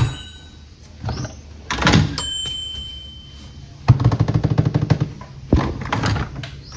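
A few separate knocks, then a fast rattle of clicks lasting about a second and a half, starting about four seconds in.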